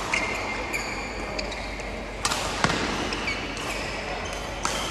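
Badminton rally: sharp racket hits on a shuttlecock, four of them, with sports shoes squeaking briefly on the court floor.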